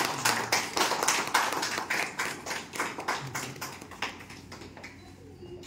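A small audience clapping; the applause thins out and dies away about four seconds in.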